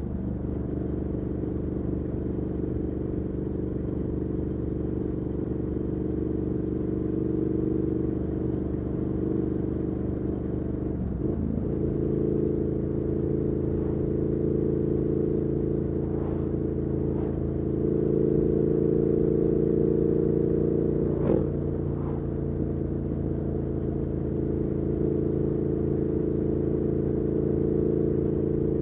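A 2019 Triumph Speed Twin's 1200 cc parallel-twin engine, breathing through a Weslake Shorty Pro exhaust, running steadily under way. The engine note changes abruptly once about eleven seconds in, and a few short clicks come in the second half.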